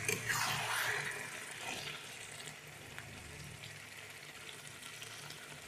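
Thick chicken curry sizzling in a kadai as it is stirred and fried down until dry. The spatula scrapes louder in the first second or so, then it settles to a faint, steady sizzle.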